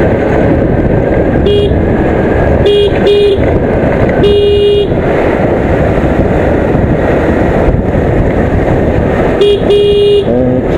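A scooter horn beeping six times, each a short steady single-note toot: three close together in the first few seconds, a longer one about four seconds in, and two near the end. Under it runs the steady rush of wind and the Aprilia SXR 160 scooter's engine on the move.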